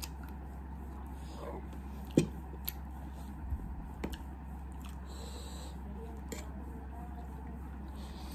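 Eating sounds: a metal fork clicking and scraping against a ceramic plate while instant noodles are picked up, with chewing. A sharp click about two seconds in is the loudest, and a short hissy, slurp-like noise comes about five seconds in.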